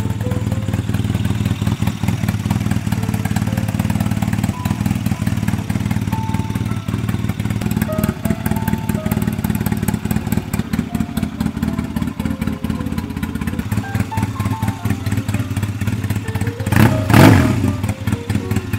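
Honda Rebel 250's air-cooled parallel-twin engine idling steadily just after being started, with one brief rev near the end. It is being run to work fresh engine oil into newly fitted clutch plates.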